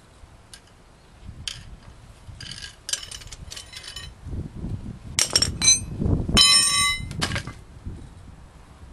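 Metal tools and parts clinking against one another as they are handled: a run of sharp clinks and rattles, some of them ringing, busiest and loudest about five to seven seconds in, with dull knocks beneath.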